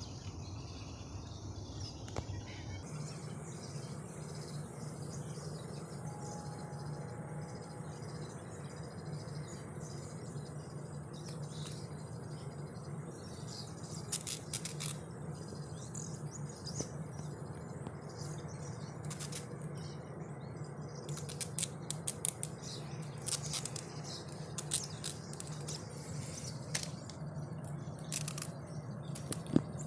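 Quiet outdoor ambience with a steady low hum, and from about midway scattered short clicks and ticks as a green coconut is handled and set on a steel rail among ballast stones.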